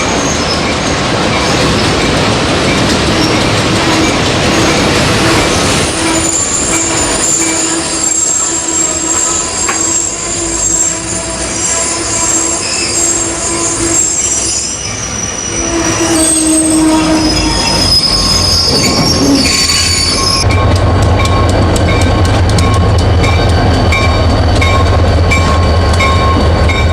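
Steam-hauled passenger excursion train rolling along the track, with steady squealing and ringing from the wheels over a rumble. About two-thirds of the way through the sound changes abruptly to a heavier low rumble with fast, regular clicking of wheels on the rails.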